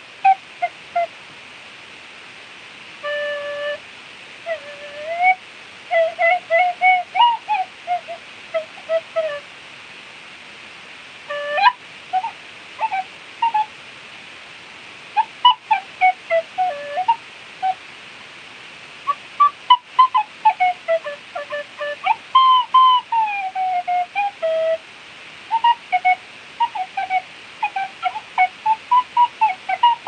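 Clarke Sweettone tin whistle played freely: a melody of short separate notes and quick runs with slides and falling bends in pitch, broken by brief pauses between phrases, over a steady breathy hiss.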